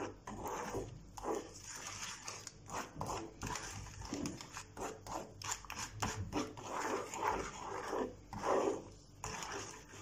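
Wooden spoon stirring and scraping melting sugar around a nonstick pan in repeated, irregular strokes, as the sugar turns to caramel.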